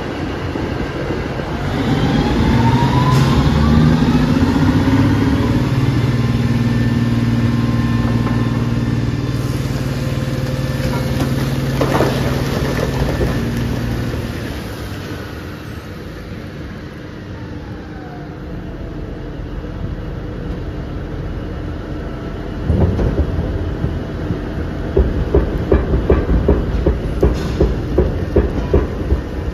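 Heavy dump truck's diesel engine running hard, rising in pitch early on, then easing off after about fourteen seconds. From about twenty-three seconds in, a fast, uneven rattle of knocking iron ore rock.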